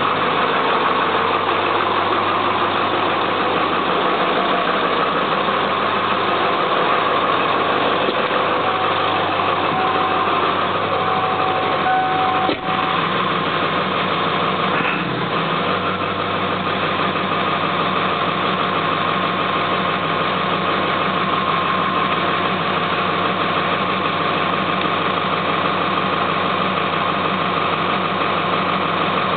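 1996 Ford F-250's 7.3-litre Powerstroke V8 turbo diesel idling steadily, with one brief knock about twelve seconds in.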